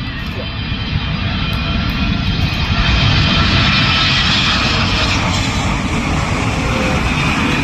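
Air China Boeing 777-300ER passing low overhead on final approach, gear down. Its two turbofan engines give a steady jet roar with a high whine, growing louder to a peak about three seconds in and then holding.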